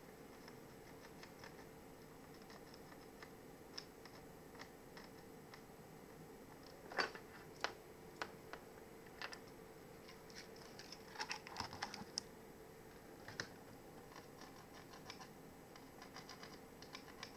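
Soldering iron tip tapping and scraping on a laptop motherboard while a circuit-board track is cleaned: faint scattered clicks, a few louder ones around the middle, over a steady faint hum.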